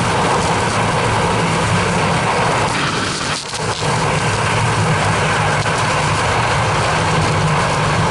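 Freefall wind rushing over a skydiver's camera microphone: a loud, steady rush of air with a brief dip about three and a half seconds in.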